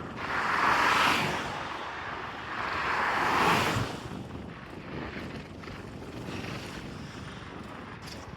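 Two road vehicles passing close by one after the other, each a swell of rushing tyre and road noise lasting about a second and a half, over a steady background of traffic and wind.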